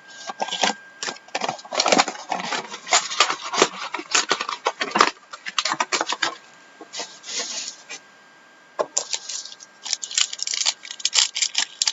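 Trading card packs and cards being handled: rapid crinkling, crackling and clicking of wrappers and card stock as packs are opened, with a short lull about two thirds of the way through.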